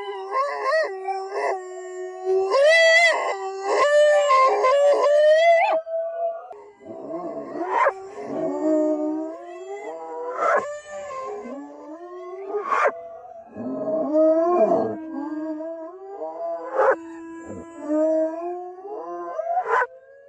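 Dogs howling together: several long, wavering howls overlap and glide in pitch, and in the second half short sharp cries break in about every two seconds.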